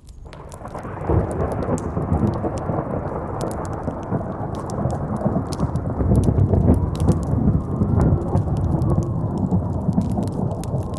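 Thunder rumbling in a long roll that builds over the first second and holds, over the sharp pops of a crackling campfire.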